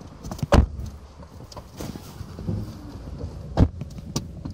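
Phone microphone handling noise: rubbing with a few knocks, the two loudest about half a second and three and a half seconds in, over a low rumble.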